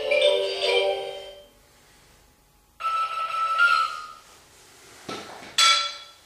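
A tinkling melodic tune fades out, then after a short lull a steady, high electronic tone sounds for about a second. A brief whoosh follows, then a shorter bright tone near the end.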